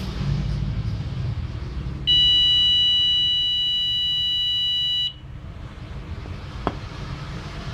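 Piezo buzzer of a homemade seven-segment countdown timer sounding one steady, high-pitched beep for about three seconds as the count reaches zero: the end-of-countdown alarm. A single sharp click follows about a second and a half after the beep stops.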